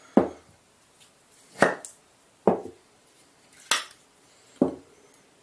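Five sharp knocks about a second apart: hard 3D-printed plastic mold parts being handled and set down on a wooden board.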